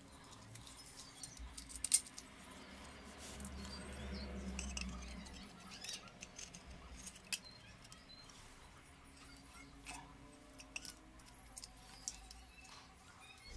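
Small metal and plastic parts clicking and rattling in the hands as a motorcycle number-plate light, its small rings and nuts, is fitted to a plastic plate-holder bracket. The clicks come irregularly, with the sharpest about two seconds in.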